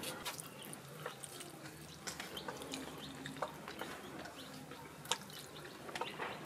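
Quiet eating sounds: scattered small clicks and taps of fingers mixing rice and curry on steel plates, with one sharper click about five seconds in.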